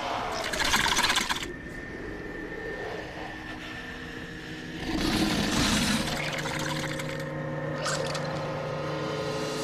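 Film sound design of a deep-sea monster's wet, hissing breaths close by: two loud bursts, about half a second in and again about five seconds in, over a steady low suspense drone.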